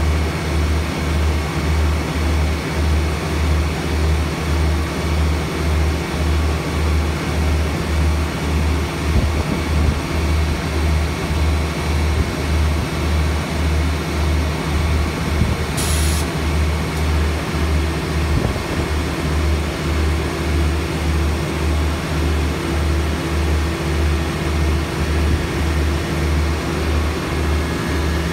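A large engine running steadily, with a low throb that pulses evenly about three times every two seconds over a constant hum. A brief sharp click about two-thirds of the way through.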